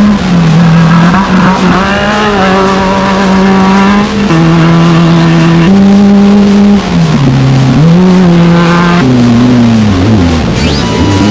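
Race car engine running at high revs, its pitch holding steady, then dropping and rising again several times, with wavering rises and falls near the end.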